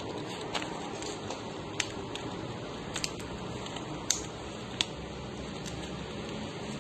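A dog chewing a NexGard beef-flavoured chewable tablet: irregular sharp clicks of teeth and small wet mouth noises over a faint steady background hiss.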